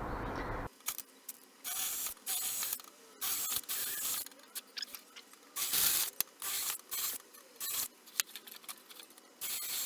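Workshop tool work on metal: short bursts of scraping and clicking mechanical noise, stopping and starting, with silent gaps between.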